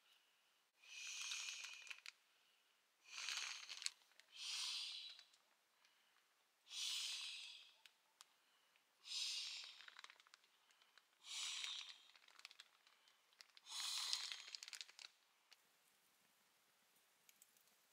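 An inflatable sleeping mat being pumped up. There are seven faint rushes of air, about one every two seconds, each lasting about a second.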